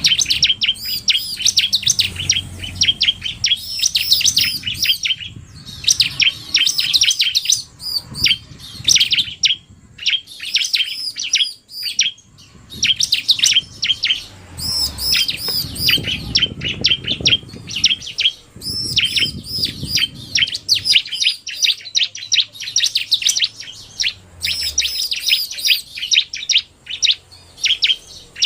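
Bar-winged prinias (ciblek) calling: rapid strings of sharp, high chirps in bursts of a few seconds with brief pauses between, the male's 'narung' song mixed with fast female calls.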